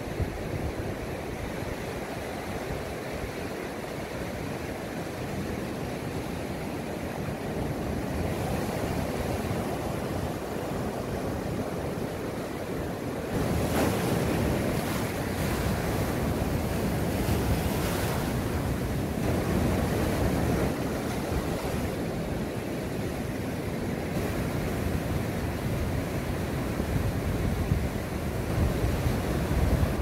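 Rough sea surf breaking and washing up the beach, with wind buffeting the microphone. The surf grows louder about halfway through.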